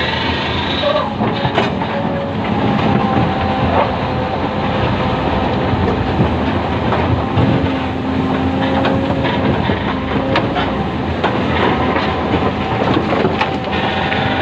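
Excavator at work: steady engine and hydraulic noise, with whining tones that come and go and occasional metallic clanks as the arm and bucket move.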